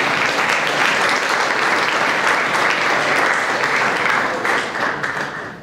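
An audience clapping steadily in a large hall, dying away near the end.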